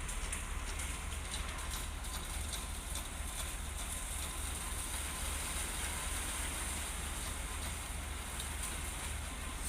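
Steady low machine rumble with a constant hiss over it and a few faint clicks, from engine-driven equipment running during a concrete pour.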